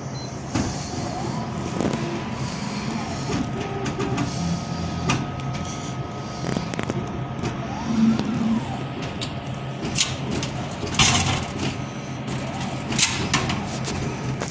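Drink vending machine dispensing after a keypad selection: a short beep, then its delivery motor whining and rising and falling in pitch twice, and a few clunks near the end as the bottle is moved down into the pickup bin, over a steady hum.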